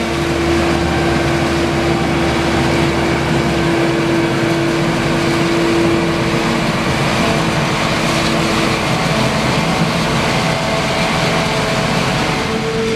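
Claas Jaguar self-propelled forage harvester running steadily while chopping maize, with a steady tone in the machine noise that fades out about nine seconds in.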